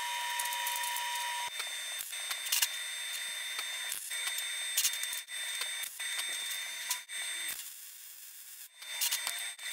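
MIG welding arc crackling and hissing in short runs, cutting out and restarting a few times.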